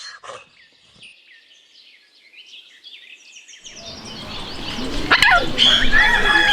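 Birds chirp faintly, then a donkey starts to bray: a wheezy, noisy sound that grows steadily louder from about four seconds in.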